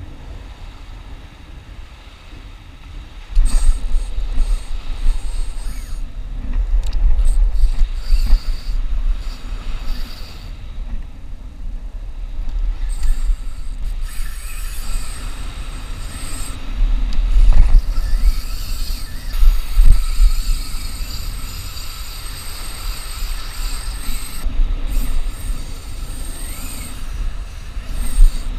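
Wind buffeting the microphone in a loud, uneven rumble, picking up sharply about three seconds in, over the wash of small surf. Above it a spinning reel whines in stretches as a hooked false albacore pulls against the bent rod.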